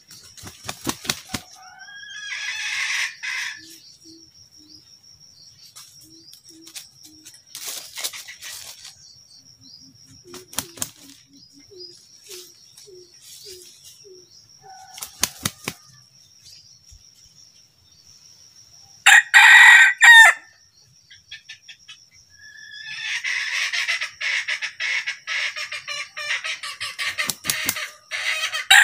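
Red junglefowl rooster crowing once, loudly, about two-thirds of the way in. Wing flapping near the start, a longer flurry of flapping and calling in the last few seconds, and soft low clucks in between.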